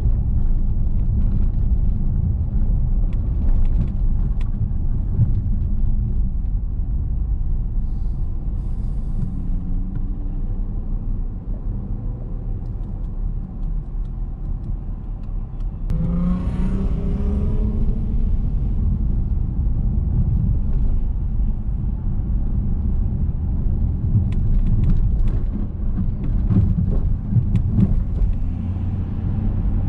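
Steady low rumble of a car on the road, engine and tyre noise. About sixteen seconds in, an engine speeds up with a rising note for a couple of seconds, then the rumble settles back.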